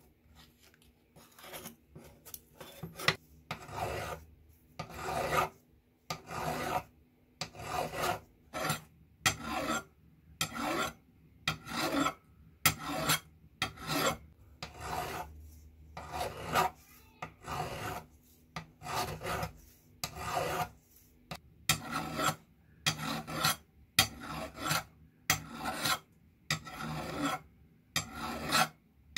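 A hand file rasping back and forth along the rusty steel blade of a pair of old handmade scissors, scraping off the rust. The strokes start about a second in and come a little more than once a second, with a sharp scrape now and then.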